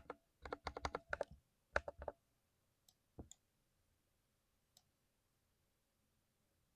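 Key presses on a lubricated 60% mechanical keyboard: a quick run of about eight keystrokes, a few more about two seconds in, then single presses spaced out.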